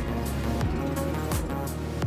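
Background music with a steady drum beat, a kick about every three-quarters of a second, under sustained melodic notes.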